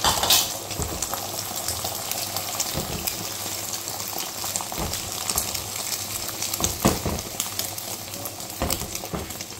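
Beaten egg frying in hot oil in a nonstick pan: a steady sizzle with scattered pops and crackles, loudest right at the start.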